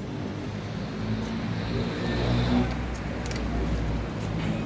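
Vehicle engine running, swelling louder about a second and a half in and easing off near the end.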